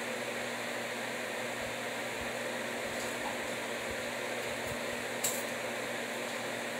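Steady whir of a running electric fan with a low hum under it, and one light click about five seconds in.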